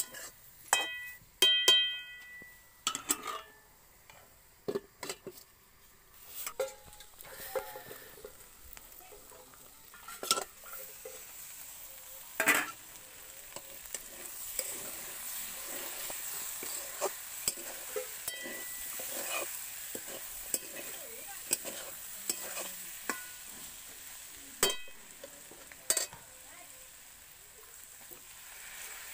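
Metal spatula scraping and knocking against a steel wok while potatoes and runner beans fry in it, sizzling. Near the start the pan rings with a few metallic clanks, and from about halfway the sizzle becomes a steadier hiss between the spatula strokes.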